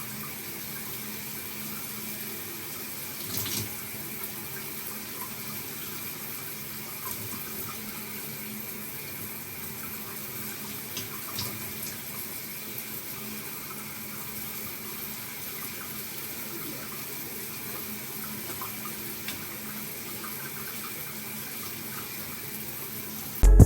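A steady, even rushing noise with a few faint clicks, such as water running from a tap.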